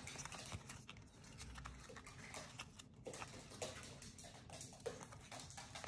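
Faint light clicks and rustles of glossy Topps baseball cards being slid and flicked one by one off a stack held in the hands, at an irregular pace.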